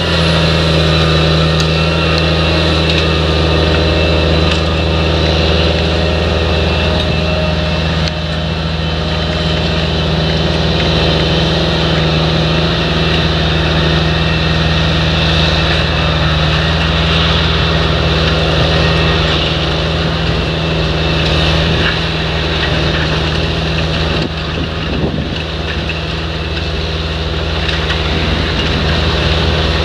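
Caterpillar Challenger MT765C crawler tractor's diesel engine running steadily under load as it pulls a wide cultivator through ploughed soil, dipping slightly in loudness about eight seconds in.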